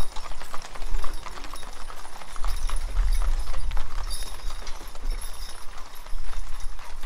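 Hooves of a harnessed team of draft mules clip-clopping on a paved road as they pull a covered wagon, a steady irregular patter of hoofbeats. A low rumble runs underneath, strongest around the middle.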